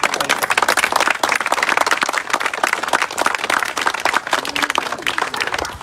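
Crowd applauding, many hands clapping together, thinning out near the end.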